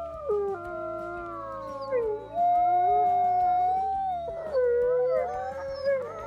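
Several wolves howling together in a chorus: long overlapping howls at different pitches, gliding up and down and crossing one another.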